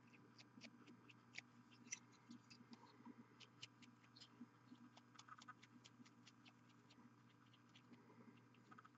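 Near silence: a steady low hum with faint, irregular light ticks and scratches scattered throughout.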